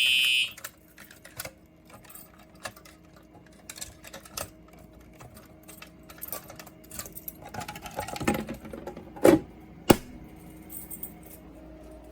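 A fire alarm horn's tone cuts off about half a second in, followed by scattered mechanical clicks and knocks, a louder rustle, and two sharp clicks a little over half a second apart near the end, over a faint steady hum.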